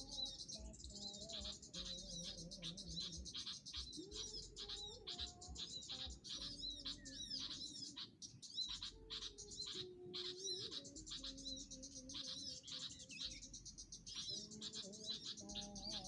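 Many small birds chirping in quick, overlapping high calls, over background music.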